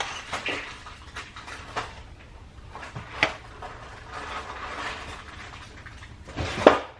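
Scattered knocks and clatter of kitchen cabinet doors and their contents being opened and rummaged through by a toddler, with one sharp knock about three seconds in and the loudest clatter near the end.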